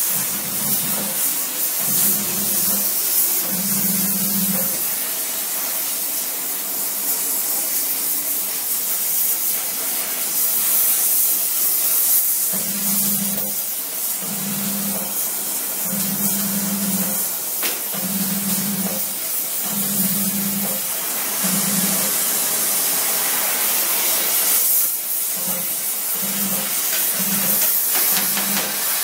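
Gas-welding torch flame hissing steadily as steel tubing is welded with a filler rod. A low hum comes and goes in short pulses about a second long throughout.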